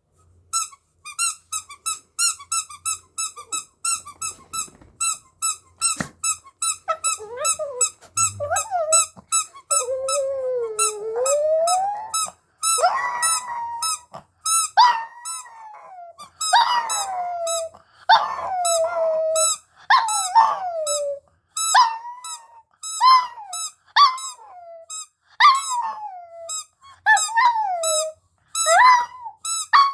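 Dog howling and whining in rising and falling notes, with a fast run of short high squeaks about three a second throughout. The howling starts about seven seconds in and builds, each later note sliding downward.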